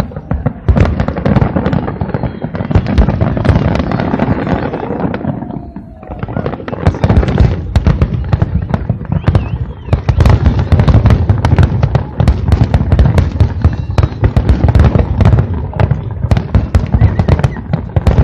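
Fireworks show: a dense, continuous barrage of firework bangs and crackles, easing briefly about six seconds in, then rapid-fire bangs packed even closer together.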